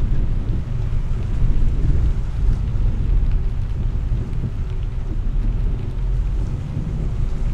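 Steady low rumble of a car driving slowly on a rain-soaked street, heard from inside the car, with a few faint ticks of rain on the windscreen.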